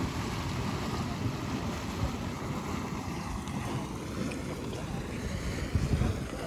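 Wind buffeting the microphone in an irregular low rumble, with a stronger gust about six seconds in.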